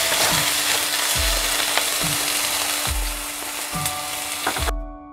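Thin chicken strips sizzling in hot vegetable oil with lemongrass in a pan on medium-high heat. The sizzle stops abruptly near the end, leaving soft background music with a steady beat.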